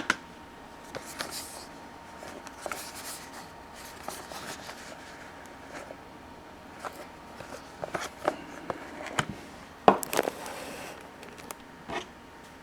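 Faint, sparse handling noises of a sealed trading card box: light taps, scrapes and crackles, with a louder rustle about ten seconds in.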